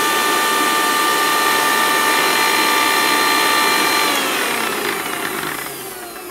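Electric mixer grinder running at speed with a steady whine, grinding a green masala paste in its small steel jar. About four seconds in it is switched off, and the whine falls in pitch and fades as the motor spins down.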